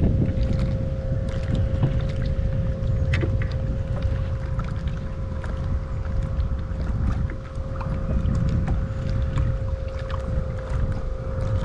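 Electric bow-mount trolling motor running with a steady whine, holding the small boat in place, over wind buffeting the microphone and scattered small ticks.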